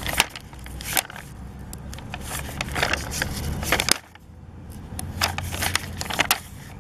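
Crinkling and crackling of a plastic sticker sheet being handled, with sharp irregular clicks as stickers are peeled off it and pressed down, over a steady low background rumble.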